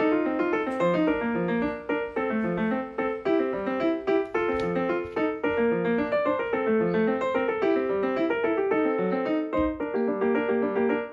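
Background piano music: a gentle piece of steadily moving notes.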